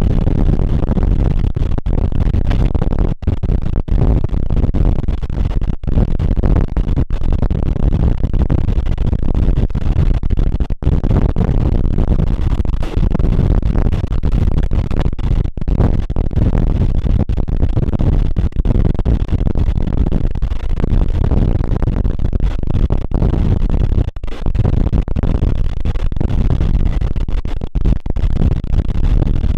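A passenger train running on the line, heard from aboard: a loud, steady rush of running noise, heaviest in the low rumble, with no clear tones and many very brief dips in level.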